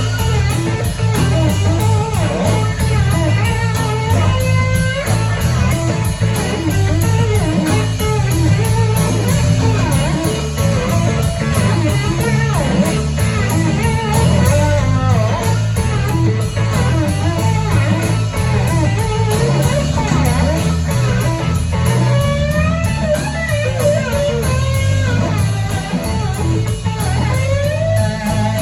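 Live blues-rock band playing with no singing: electric guitar plays bending lead lines over a steady bass.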